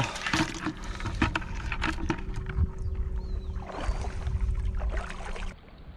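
Shallow seawater sloshing and splashing as someone wades across a rocky tidal flat, with scattered clicks and knocks and a low rumble. It turns quieter near the end.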